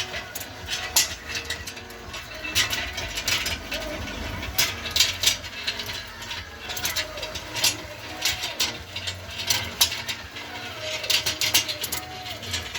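Homemade motor-driven skewer rig running without load: a 12-volt gear motor turns the skewers through a chain and homemade gears, with irregular clicking and clattering over a low hum. The builder puts the rough running down to crooked homemade gear teeth that sometimes miss a tooth.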